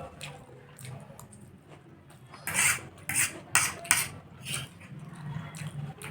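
Close-miked eating sounds: a run of sharp crunches and clicks in the middle, several a second, with quieter mouth and chewing noises around them.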